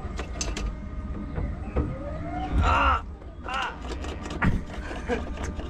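Small ride car rolling along its course with a low rumble and frequent rattling clicks, and a brief high squeal a little before halfway.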